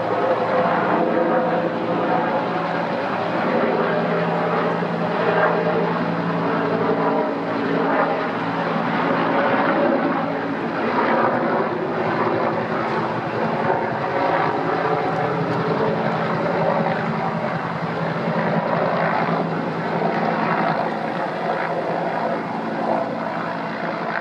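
JGSDF UH-1J helicopter flying overhead, its rotor and engine giving a steady, unbroken drone.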